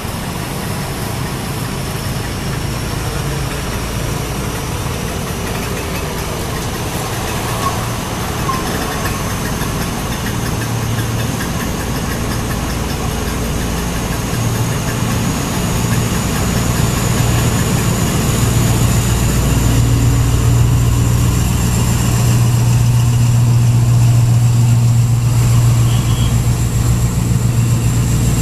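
An engine running, its deep steady hum growing louder over the second half, with a thin high whine that rises slowly in pitch throughout.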